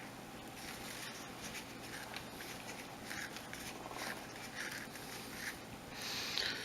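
Faint rustling and light scattered ticks of hemp cord being handled and pulled through square knots on a macrame board.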